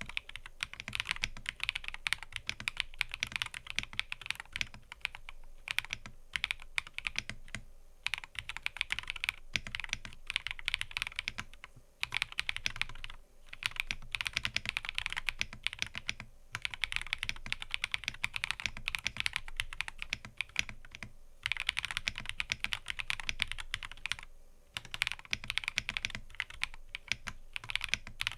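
Mechanical keyboard being typed on in quick, steady runs of clicking keystrokes, broken by short pauses every few seconds.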